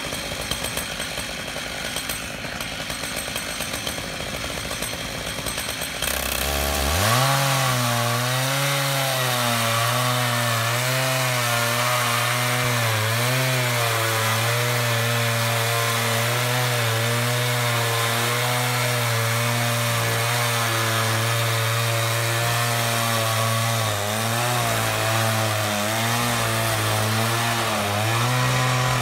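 Large Stihl chainsaw powerheads driving an 87-inch bar on a double-ended Alaskan chainsaw mill, ripping through a big redwood log. After a rougher start, the engine note rises to full throttle about seven seconds in and then runs steadily under load, its pitch wavering slightly as the cut goes on.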